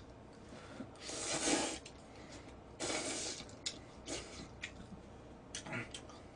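A person slurping cold spicy noodles: about four short, noisy slurps, the longest and loudest about a second in.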